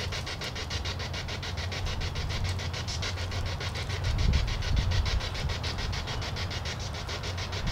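Handheld spirit-box radio sweeping through stations, a fast, even chopping hiss of about nine short bursts a second, over a low rumble that swells about four seconds in.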